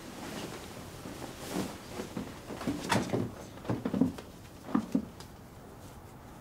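Duvet and bedclothes rustling, with several soft thumps, as a person moves and sits up in bed; the sharpest knock comes about halfway through.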